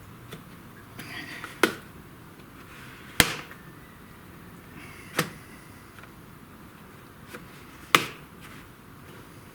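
Plastic snap-fit clips of an HP laptop's case popping undone as a wooden stick pries the cover off around its edge: four sharp snaps one to three seconds apart, with a light scrape of plastic between them.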